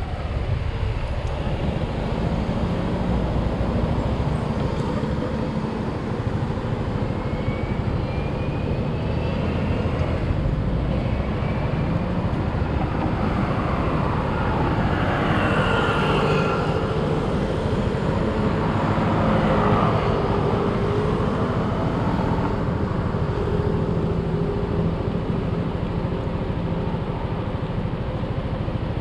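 Road traffic at a junction: a steady low rumble of passing cars and motorcycles, with one vehicle's engine note falling in pitch as it goes by about halfway through.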